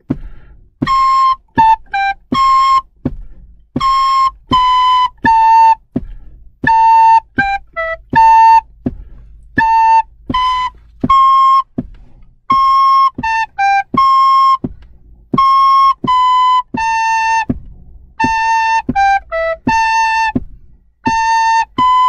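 Soprano recorders playing a simple tune in short, separated notes (C–A–G–C, C–B–A, A–G–E–A, A–B), as call and response: one recorder plays the phrase, then a second recorder repeats it from about halfway.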